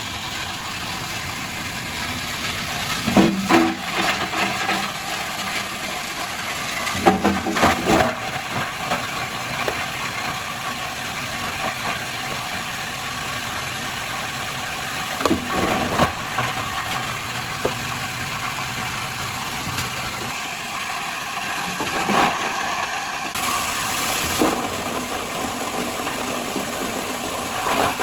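Workshop machinery running steadily, with a few louder knocks or clatters at intervals.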